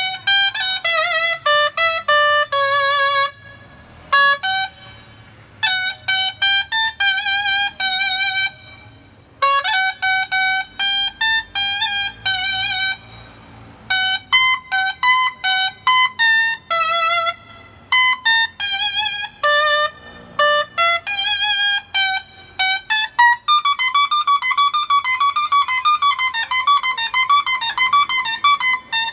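A dolçaina, the Valencian double-reed shawm, playing a solo melody in phrases with short breaks for breath. In the last several seconds it plays a long run of fast, quick notes.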